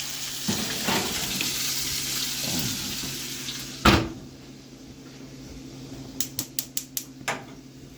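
Cornish hen sizzling in butter and oil in a hot cast iron pan, then a single loud clunk about halfway, after which the sizzle is much quieter. Near the end comes a quick run of about seven sharp clicks.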